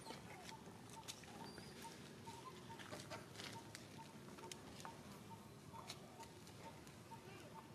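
Near silence outdoors: a faint, even pulse of short high notes, about four a second, with scattered soft clicks and rustles.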